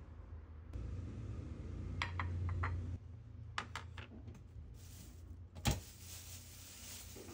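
A wooden serving tray being handled on a hard countertop: a few light clicks and taps, then one sharp wooden knock about two-thirds of the way in as it is set in place, over a low steady hum.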